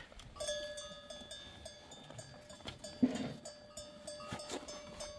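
Bells on a herd of goats ringing, a steady chime that is lightly re-struck every half second or so. A goat gives a short bleat about three seconds in.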